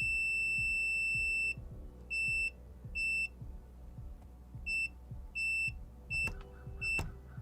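Digital multimeter's continuity beeper sounding as the probes are touched to solder pads: one long steady beep of about a second and a half, then six short beeps in an uneven rhythm, with a couple of sharp probe clicks near the end. Each beep marks a closed circuit between the probed points.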